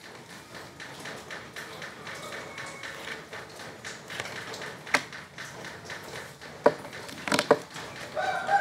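A few sharp clacks of playing cards being put down or snapped on a wooden bench: one about five seconds in and a quick cluster of three near the end, over low background noise.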